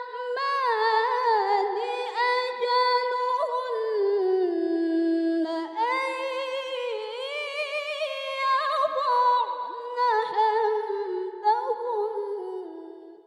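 A woman reciting the Quran in melodic mujawwad style, drawing a long, ornamented phrase out in one breath with the pitch winding up and down. The voice trails off at the end.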